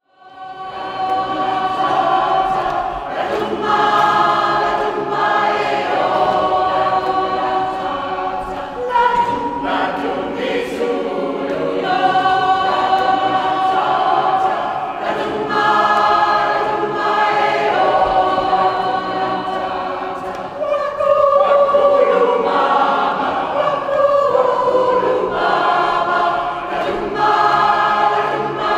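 Mixed community choir of men and women singing together in a cathedral. The singing begins at the start out of silence.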